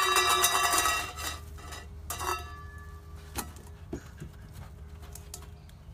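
Stainless steel dog bowl ringing and rattling on concrete after being dropped, dying away about a second in. A second clink with a short ring comes about two seconds in as the dog mouths the bowl and picks it up, followed by a few light knocks.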